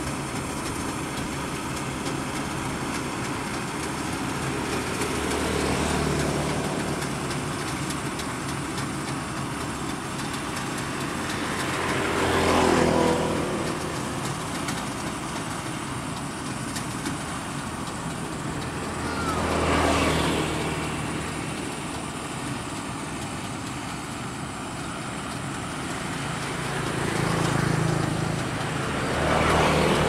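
Rice combine harvester working a paddy: a steady engine and machinery drone that swells louder several times.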